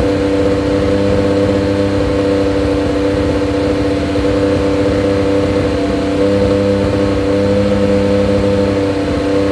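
A motor running steadily at constant high speed, a loud, even hum at a fixed pitch.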